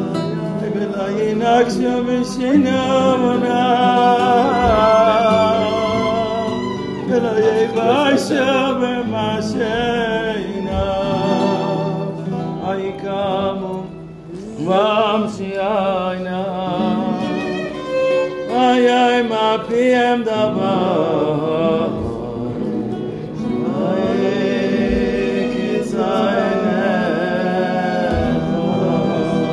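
Singing with instrumental accompaniment: a melody of long held and gliding notes over a steady low accompaniment.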